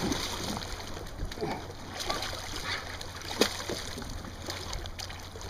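Choppy water lapping and splashing against a kayak hull, with scattered small splashes and one sharp knock about three and a half seconds in.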